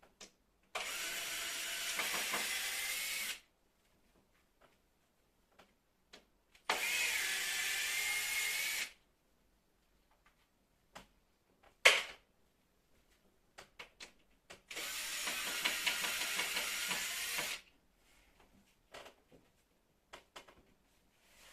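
A power tool run in three separate bursts of two to three seconds each, with one sharp knock about midway and small clicks and handling noises between the runs.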